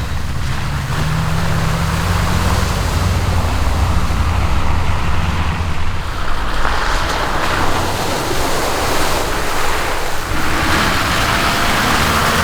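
Mitsubishi Montero diesel engine running steadily as the 4x4 drives along an off-road track, with a rushing noise of wind and tyres over it that swells twice.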